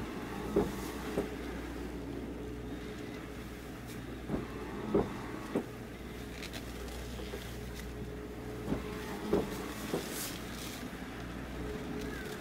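Steady low engine hum from moored purse-seine fishing boats, with short knocks coming in groups of two or three about every four seconds.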